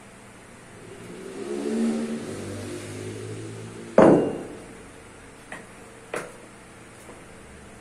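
A 24 kg kettlebell set down hard on a tiled floor, one loud knock with a short ringing tail about four seconds in, followed by two light clicks. Before it, a low rumble swells and fades.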